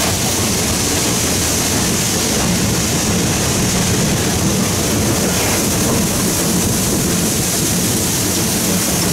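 Steady running noise in the cab of a moving 2-8-0 steam locomotive, Southern 630: a low rumble under a constant rushing hiss, with no separate exhaust beats or clicks standing out.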